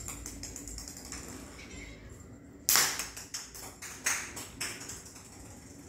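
A plastic toy bat and ball tapping and knocking on a tiled floor: a run of light taps, then a sharper knock about three seconds in and a couple of smaller ones after it.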